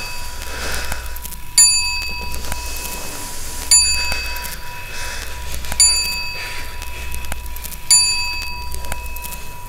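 A small bell struck four times, about every two seconds, each strike ringing briefly and dying away, over a steady low hum.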